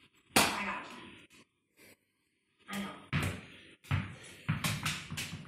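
A ball bouncing on a wooden floor: one loud bounce about half a second in, then a run of several quicker bounces and knocks in the second half.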